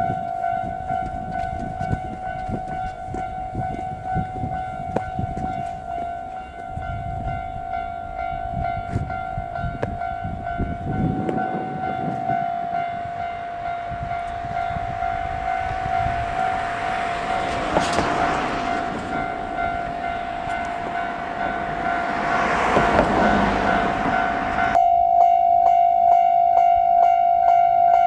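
A Japanese level-crossing alarm rings on and on in a steady, repeated electronic tone. A broad rushing noise swells up twice past the middle, over traffic and rail rumble.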